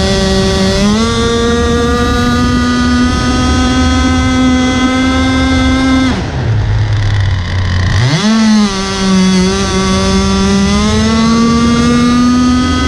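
Gasoline engine of a 4-foot RC speedboat, heard close up from on board, running at speed. About six seconds in the throttle drops to idle for roughly two seconds, then the engine revs back up and its pitch climbs steadily.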